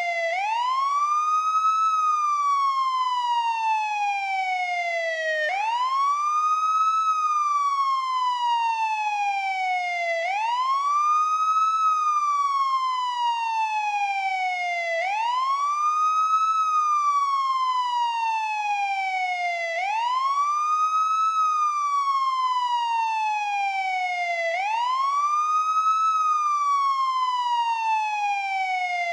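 Police siren on its wail tone. The pitch sweeps quickly up, then slides slowly back down, over and over, about once every five seconds.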